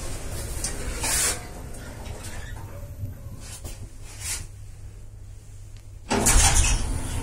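Passenger lift car running in its shaft with a steady low hum and occasional light rattles. About six seconds in comes a louder clatter of the lift's doors.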